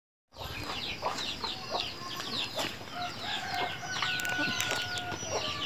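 Chickens clucking and chirping, a quick run of short high falling calls several times a second.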